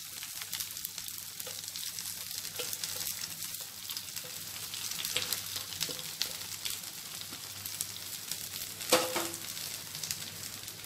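Drumstick (moringa) leaves frying in hot oil tempering with onions in a pan, sizzling and crackling steadily as they are stirred. A single ringing metal clank about nine seconds in.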